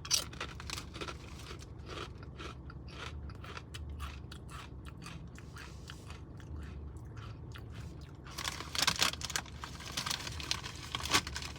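A person biting into and chewing a kettle-cooked potato chip: a sharp crunch at the start, then steady crisp crunching. The crackle gets louder and denser in the last three seconds.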